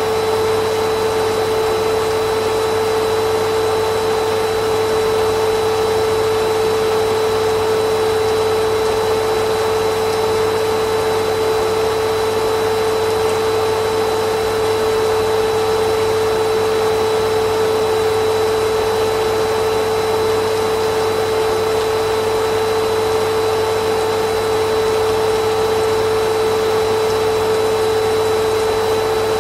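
Vacuum cleaner running steadily without a break: a constant rushing of air with a steady whine on top.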